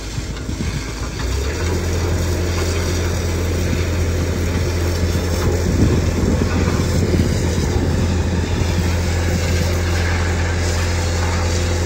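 An engine running steadily, its low drone stepping up about a second and a half in, under the hiss and splatter of a high-pressure water jet washing sludge out of a vacuum truck's tank.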